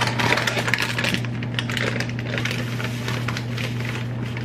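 Plastic bag of dry cake mix crinkling as it is pulled from its cardboard box and tipped into a mixing bowl: a dense run of small crackles, over a steady low hum.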